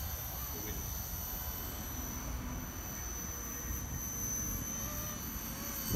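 Blade 230S electric RC helicopter in flight: a steady high-pitched whine from its motor and rotors over a low rumble.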